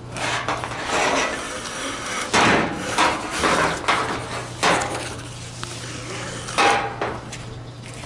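Seat belt retractor being handled, with clacking and knocks from its plastic housing and locking mechanism; four sharp knocks stand out, about two and a half, three, just under five and nearly seven seconds in.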